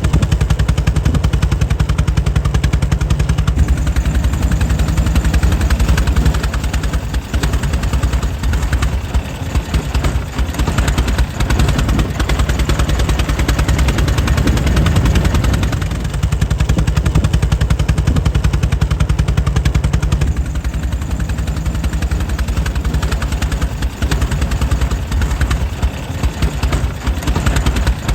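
Air-cooled engine of a 1904 Mitchell running steadily, with a rapid, even beat of firing strokes. In a few places the beat loosens and grows uneven for several seconds.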